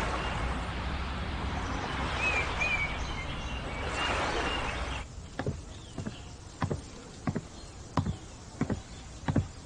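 Steady outdoor ambience with a few short bird chirps. About five seconds in, it cuts to a quieter background with footsteps at an even walking pace, roughly three steps every two seconds.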